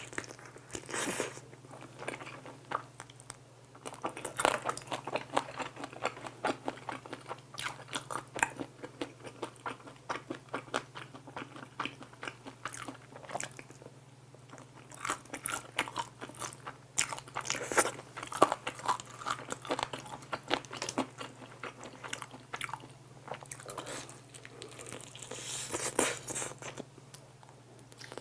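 Biting and chewing of crispy soy-glazed fried chicken wings: a steady run of small crunches from the fried coating, with louder clusters of bites every few seconds.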